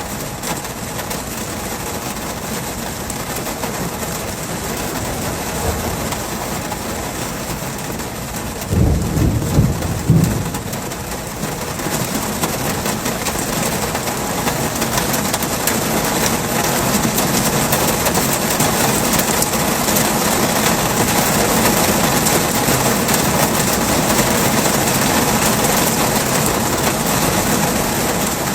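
Heavy rain falling steadily, with a low rumble of thunder lasting about two seconds starting around nine seconds in. The rain grows louder toward the end.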